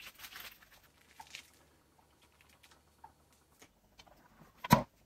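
Faint crinkling of a thin Mylar balloon envelope being folded by hand, followed by scattered light clicks and one sharper click near the end.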